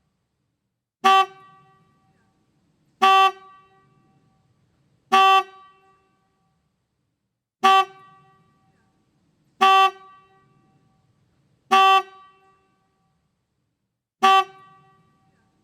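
Motorcycle horn giving seven short, single honks about two seconds apart, each with a brief fading ring after it.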